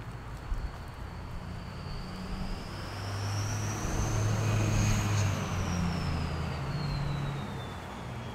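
A motor vehicle passing by on the street. Its engine hum builds to loudest about halfway through, and a thin high whine rises in pitch as it approaches, then drops and fades as it moves away.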